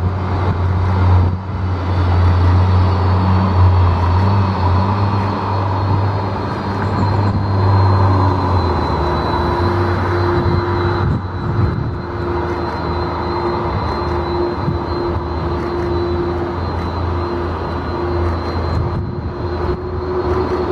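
Airbus A330 taxiing past at idle power: a steady low engine hum with a thin high turbofan whine, and a further steady tone joining about eight seconds in.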